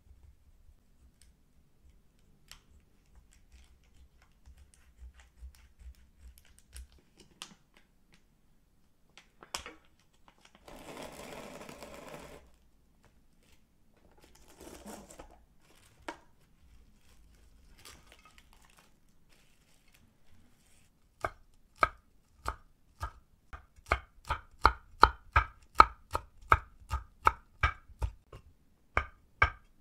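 Broad kitchen knife chopping scallions and chili peppers on a wooden cutting board: a fast, even run of sharp knocks, about three a second, starting about two-thirds of the way in. Before it come quieter handling noises and a brief rustle.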